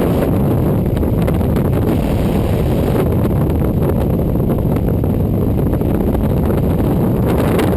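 Freefall wind rushing over a body-worn action camera's microphone: a steady, loud, low buffeting rush with no break.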